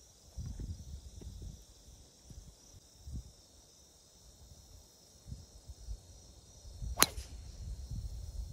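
A golf club striking a golf ball on a full tee swing: a single sharp crack near the end.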